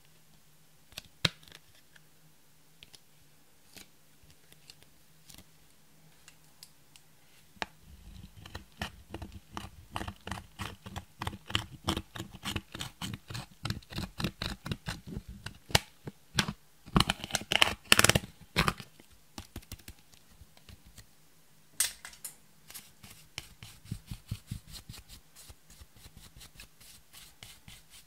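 Rapid clicking and scraping as the end of a hard tool digs into a pressed eyeshadow pan, breaking up the powder into a glass dish. A few scattered clicks at first, then dense tapping from about eight seconds in, loudest for a moment a little past halfway, briefly stopping, then picking up again.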